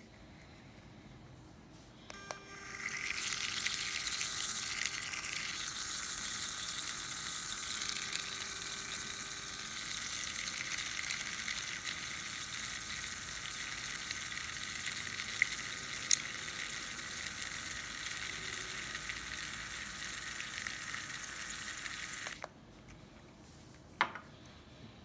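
Rechargeable handheld milk frother whirring with its spiral whisk spinning in a shot glass of coffee liquid. It starts a couple of seconds in, runs steadily for about twenty seconds, then cuts off suddenly near the end.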